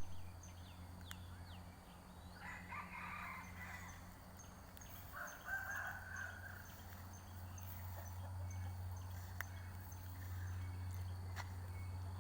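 A hen calling in two short spells, about two and five seconds in, over a steady low hum.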